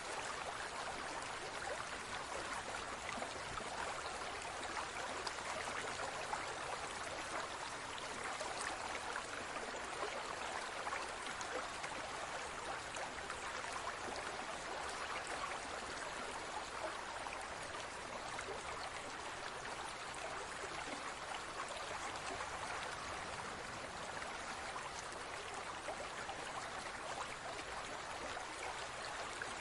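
Steady trickle of water in a large aquarium, an even splashing hiss that does not change.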